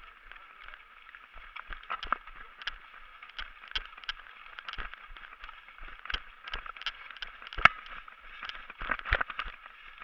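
Running footsteps on leaf litter and wet ground, heard from a camera worn by the runner, with gear knocking and rattling in uneven thumps about two or three a second and one sharper knock about three quarters of the way through.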